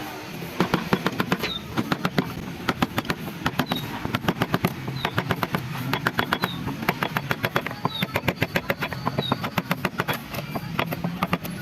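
Quick runs of sharp taps, several a second with brief pauses between runs: a carver's mallet striking a chisel or gouge into wood.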